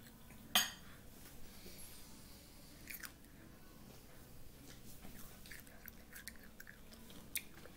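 A child chewing a piece of pineapple with the mouth open, giving faint wet smacks and clicks. A sharp click about half a second in is the loudest.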